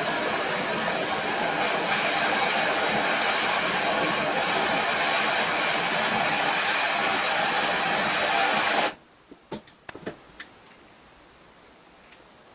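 A handheld power tool running steadily at full speed, a dense even whir, which cuts off suddenly about nine seconds in; a few light clicks and knocks follow.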